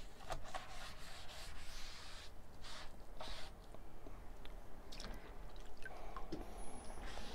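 Wet natural sponge wiping and squishing over soaked cotton watercolor paper, saturating the sheet before it is stretched, with water dripping and a splash as the sponge goes back into the water bucket near the end.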